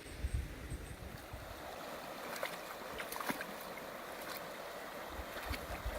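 Creek water running over rocks, with scattered small splashes and ticks.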